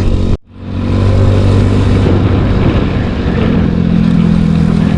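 Yamaha Mio Sporty scooter's single-cylinder engine running while under way, over a rush of wind and road noise. The sound drops out for a moment about half a second in, then comes back. The engine note steps up a little past the middle.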